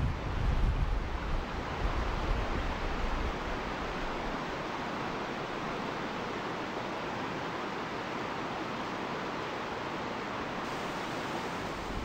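Rocky river rapids rushing in a steady roar of water. Wind buffets the microphone with low rumbles for the first few seconds, then settles.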